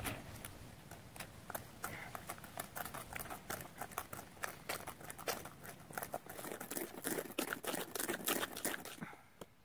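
A hand-held stone grinding and tapping against a stainless steel bowl, mixing red ochre earth and shark liver oil into a paint paste: a rapid, uneven run of clicks and scrapes that gets busier toward the end and stops just before it.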